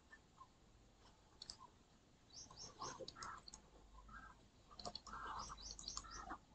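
Near silence: room tone with a few faint, short high chirps and soft clicks scattered through the second half.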